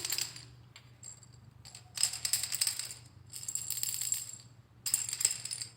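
Montessori sound cylinders being shaken to compare how loud they rattle: three short rattling shakes about a second and a half apart.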